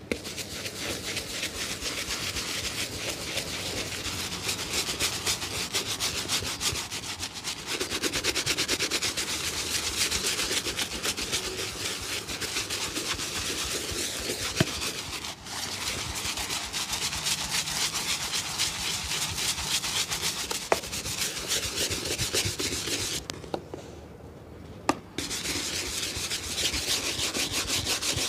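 Fast, steady rubbing strokes worked over a shoe by a cobbler, with a brief break about fifteen seconds in and a pause of about two seconds near the end.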